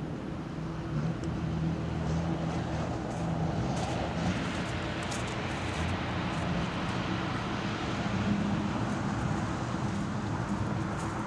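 Diesel engines of Sherp amphibious ATVs running steadily as they drive through water over river ice, with a spell of splashing hiss about two to five seconds in and a few scattered clicks.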